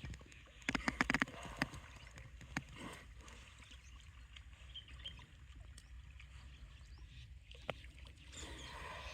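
Water buffaloes moving in water: splashing and sloshing, with a quick cluster of sharp clicks about a second in and a few single clicks later, over a low steady rumble.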